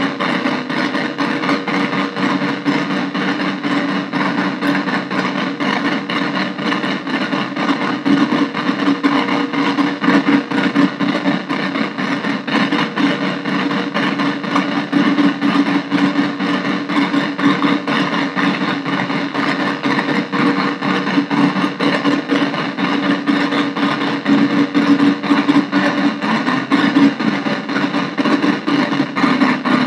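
Arturia MicroBrute synthesizer cross-patched with a Casper Electronics Nova Drone, played through a small Peavey bass practice amp: a dense, steady drone of buzzing synth noise with a rough, rapidly fluttering texture.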